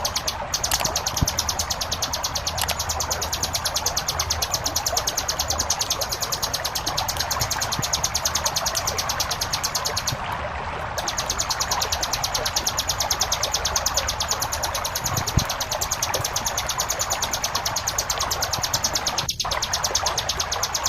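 Ciblek gunung (a prinia) song on a loop: a very fast, unbroken buzzing trill of tightly packed high notes that breaks off for about a second near the middle. Under it runs a steady rush of flowing water.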